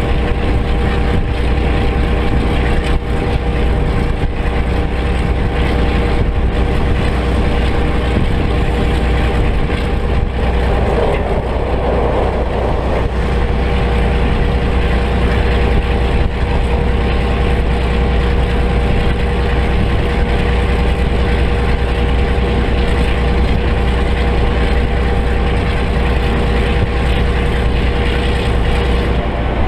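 EMD 567 two-stroke V12 diesel engine of an NZR Da class (EMD G12) locomotive running steadily under power while the locomotive travels, heard close up from its front end. A brief rushing noise swells and fades about eleven seconds in.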